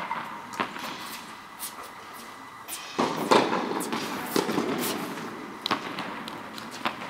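Tennis balls being struck by rackets and bouncing on the court: sharp, separate pops at uneven intervals. About three seconds in, a louder, denser stretch of noise lasts about two seconds.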